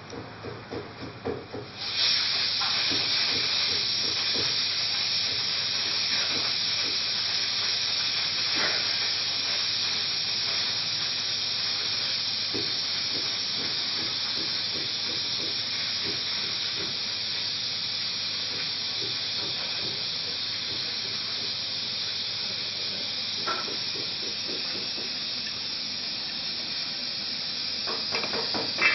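A steady, loud hiss starts suddenly about two seconds in and holds even, with faint clicks and scrapes from a small knife carving a vegetable.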